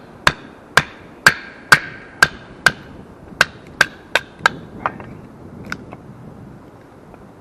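Batoning a knife through a split of dead maple set in its natural crack: about a dozen sharp knocks on the knife's spine, roughly two a second, each with a short ring, thinning out and stopping about six seconds in as the wood splits easily.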